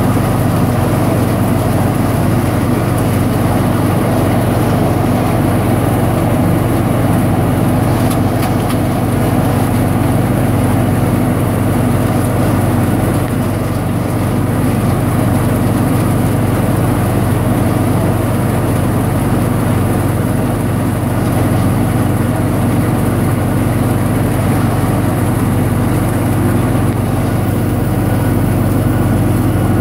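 Tractor engine running steadily under load while a Gehl 400 forage harvester chops standing corn and blows it out of its spout, a continuous loud machine drone.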